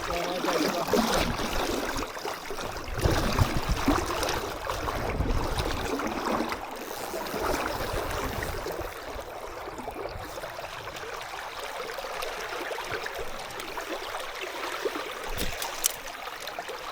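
River water flowing and gurgling, louder and more uneven for the first six seconds, then steadier, with one sharp click near the end.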